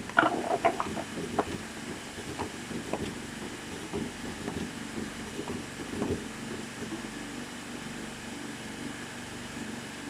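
Vertical automatic cartoning machine running: a steady motor hum with irregular mechanical clicks and knocks, clustered in the first second and a half and sparser after.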